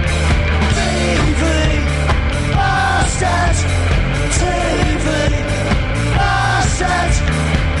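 Punk rock band playing live, loud, with a steady drum beat.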